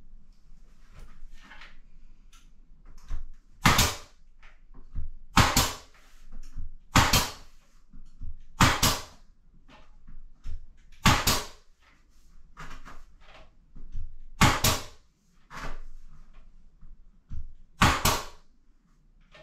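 Pneumatic nail gun firing nails into wooden window trim: about seven sharp shots, one every one to three seconds, some as quick doubles, with fainter knocks from the trim being handled in between.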